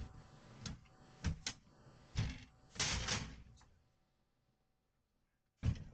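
Thumps and knocks on a door: several sharp strikes over the first few seconds with a longer clattering noise about three seconds in, then a pause and one more thump near the end.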